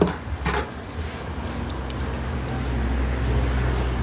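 Two short sharp scrapes of a knife on a large red fish being scaled, then a motor vehicle's engine running steadily as a low hum that grows louder through the second half.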